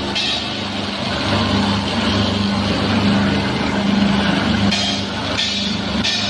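Steady mechanical hum of industrial machinery running, with an even low drone. Near the end, regular beats of background music come in.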